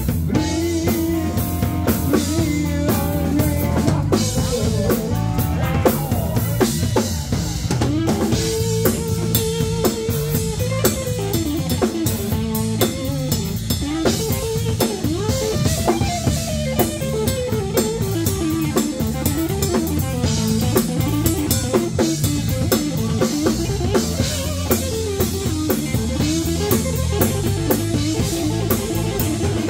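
Live blues-rock band playing an instrumental passage: an electric guitar lead line sliding up and down over bass and a full drum kit keeping a steady beat.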